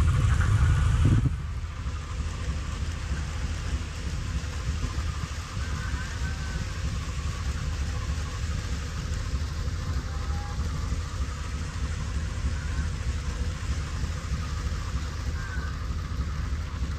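Model train freight cars rolling past close by in a long string, their wheels on the track making a steady low rumbling clatter. For about the first second the passing locomotive's sound is louder, then it drops away.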